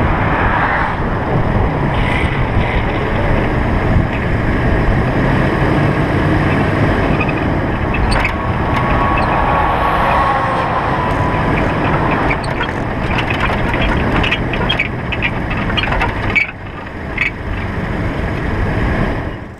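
Wind on the microphone and steady road noise during the downhill ride, then a tanker truck driving past on the highway about halfway through. Scattered clicks and knocks follow in the last few seconds.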